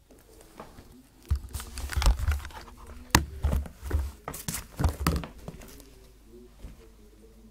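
A run of clattering knocks and thuds from kitchen utensils being rummaged through for a spatula, lasting about four seconds from a second or so in.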